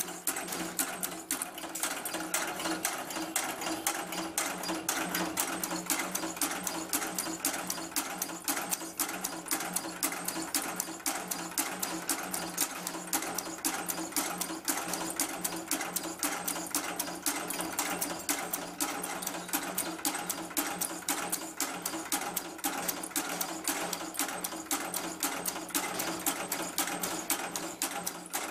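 Automatic packing-clip making machine running: a fast, even mechanical clatter of several strokes a second over a steady motor hum.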